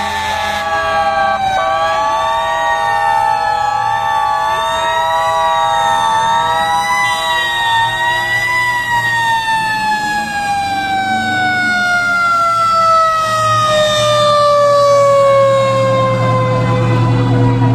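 Fire truck sirens sounding as fire engines pass: a wail wavering up and down about once a second, then a long, slow falling glide over the second half. A truck engine's rumble grows near the end as a fire truck passes close.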